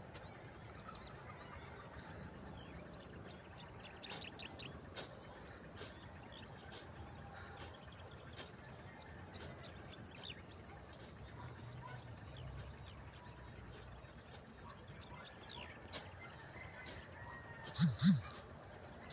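Steady high-pitched chorus of crickets and other insects, pulsing rapidly. Near the end come two short, loud, low sounds in quick succession.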